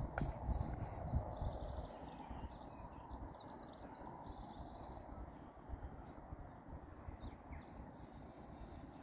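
Songbirds chirping in a quick run of high notes through the first half, over wind buffeting the microphone. The wind rumble is heaviest for the first couple of seconds and then eases.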